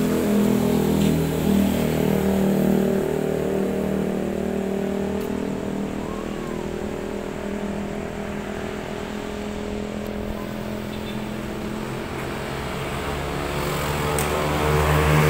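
Motor vehicle engine running steadily, getting louder again near the end.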